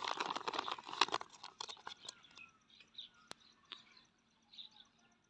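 Plastic toy packaging and plastic animal figures being handled: crinkling and light clicks, busy for the first two seconds or so, then only a few scattered clicks.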